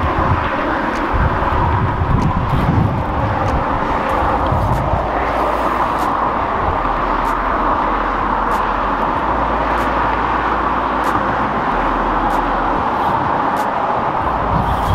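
Steady wash of road traffic crossing the highway bridge, with wind buffeting the microphone in the first few seconds.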